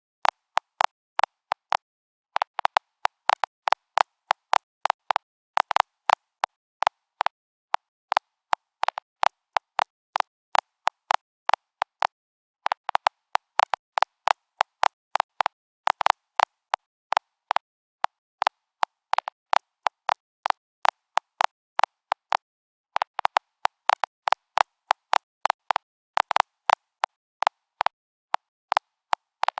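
Geiger counter clicking irregularly, several sharp clicks a second, in uneven clusters broken by short pauses. The clicks register radiation, as from uranium.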